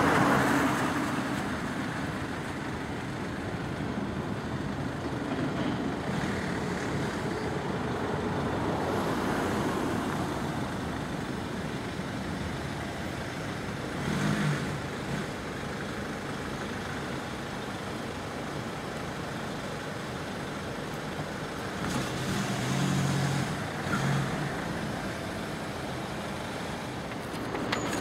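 Steady road and rail noise at a level crossing: a freight train passing behind the lowered barriers while a queue of cars waits. Engine notes from road vehicles swell briefly about halfway through and again near the end.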